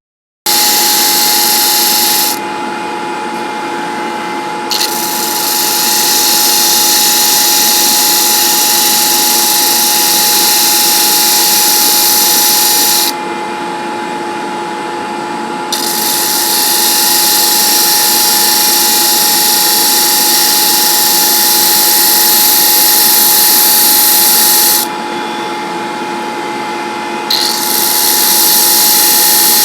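A power tool running steadily with a constant whine and a loud high hiss. The hiss drops away three times for a couple of seconds each, at roughly even spacing, while the motor keeps running.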